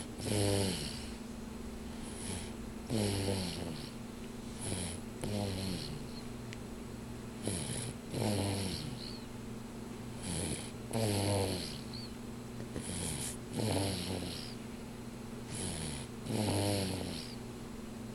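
Sleeper snoring rhythmically, about seven breaths: each a short hissing in-breath followed by a louder snore that falls in pitch, roughly every three seconds.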